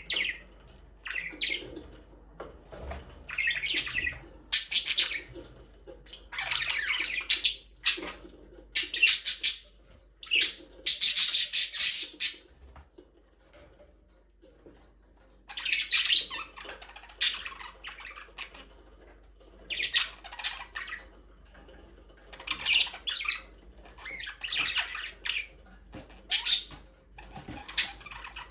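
Budgerigars chattering and squawking in bursts of a second or two with short pauses between, and a quiet stretch of a few seconds about halfway through.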